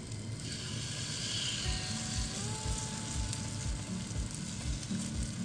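Pancake batter sizzling as it is spooned into steel cookie-cutter molds in an oiled nonstick frying pan on low heat; the sizzle swells about half a second in.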